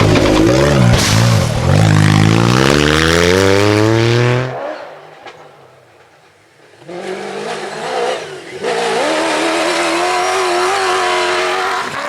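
Rally-raid competition engine accelerating hard, its pitch climbing steadily, then cutting off about four and a half seconds in. After a short lull, another engine comes in about seven seconds in and runs at high revs with a wavering pitch, dropping briefly just past eight seconds.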